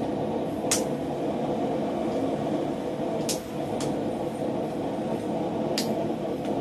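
Hand hammer striking a red-hot steel bar on an anvil: four scattered blows, two of them close together in the middle, as the bar is forged into an L bracket. A steady low rumble of background noise runs underneath.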